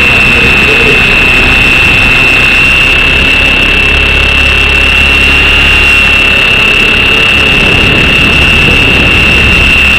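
Onboard sound of a T-Rex 550 flybarless RC helicopter in flight: a loud, steady rushing of rotor and airframe noise under a constant high-pitched whine.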